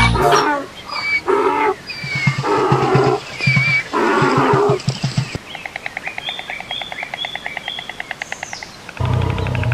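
Wild animal call sound effects: a run of short roaring calls with bird chirps above them, then a fast pulsing trill for a few seconds, and a deep low rumbling sound starting near the end.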